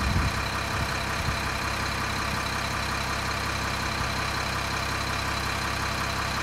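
Diesel engine of a front-loader garbage truck, a Cummins 8.3-litre, idling steadily, with a steady faint high whine over it. A few dull low thumps come in the first second and a half.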